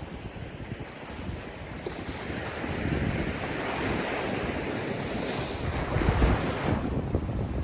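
Ocean waves washing in on a shore: a wave swells over several seconds and breaks about six seconds in, its hiss then falling away, with wind rumbling on the microphone.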